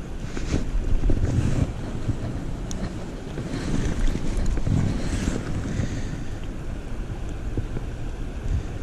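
Wind buffeting the microphone over shallow river water, with a few brief splashes as a steelhead is held in the water at a rocky edge.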